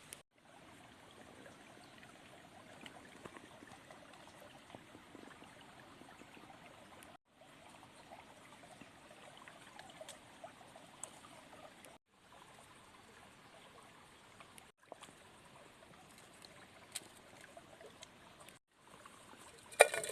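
Mountain stream trickling over rocks, with scattered faint clicks and a sharp knock near the end. The sound drops out briefly several times.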